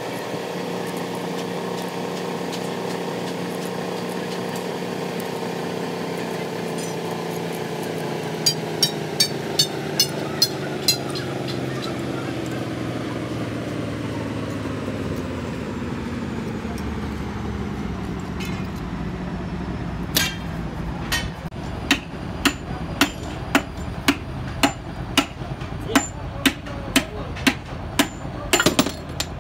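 Hammer strikes on a Hino 1J truck engine block during assembly. A quick run of about seven blows comes about a third of the way in, then an even series of about one and a half blows a second from two-thirds in. Underneath is a steady machine hum that slowly falls in pitch and fades.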